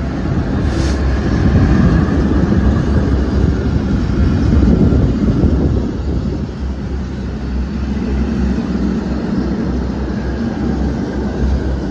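Class 66 diesel locomotive's two-stroke V12 engine passing at close range, then a long rake of freight wagons rolling by with a loud, steady low wheel rumble on the rails. A brief hiss about a second in.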